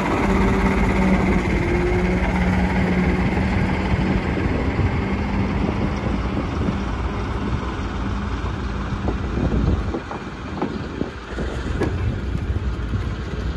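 Diesel shunting locomotive's engine running steadily as it moves off with a rake of wagons, its note fading after about eight seconds. Then a few knocks and clanks from the passing wagon and coach wheels.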